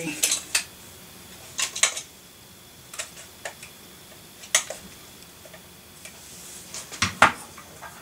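Clicks and clinks of a hard drive and its drive caddy being handled, turned over and pushed together. The clicks are scattered, a second or more apart, with the sharpest pair about seven seconds in.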